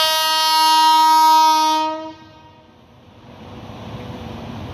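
Indian Railways electric locomotive's horn sounding one long blast of about two seconds that cuts off. It is followed by the rumble of the approaching train, building up.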